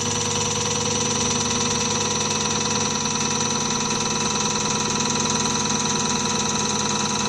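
CRS708D common rail diesel test bench running, its drive motor turning the high-pressure fuel pump under test at a steady speed: an even mechanical whine and hum made of many steady tones.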